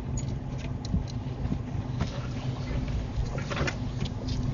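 Vehicle engine idling steadily, a low even hum, with a few faint clicks and knocks.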